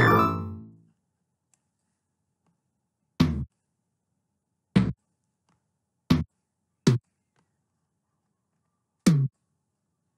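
707 Tom drum-machine sample struck six times at varying pitches, each hit sliding slightly down in pitch. The first, at the very start, rings out for about a second; the other five are short and come at uneven intervals. These are preview sounds of tom notes as they are placed one by one.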